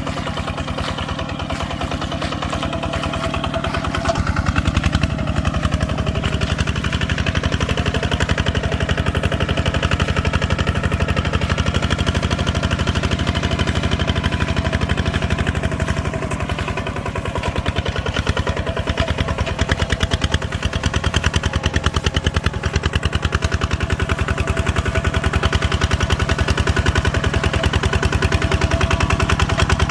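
A farm machine's engine running steadily, with a rapid, even pulsing throughout.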